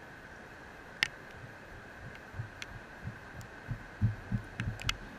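Footsteps on sand approaching the grounded quadcopter's camera: soft low thuds at an irregular pace, starting about two seconds in and growing louder. Under them run a faint steady high hum and a few sharp clicks.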